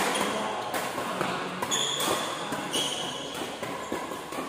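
Badminton rally: rackets smacking the shuttlecock every second or so, with footsteps and short high squeaks of shoes on the court.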